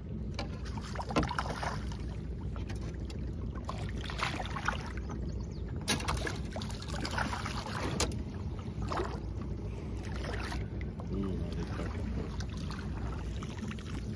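Water splashing and slapping at the side of an aluminum fishing boat as a hooked fish is played near the surface and netted, in several short irregular surges over a steady low rumble.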